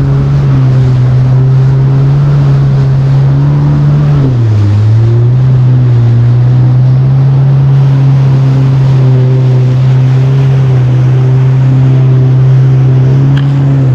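Yamaha WaveRunner personal watercraft engine running steadily under way at cruising speed, with water and spray noise. The engine pitch dips briefly about four and a half seconds in, then comes back up to a steady note.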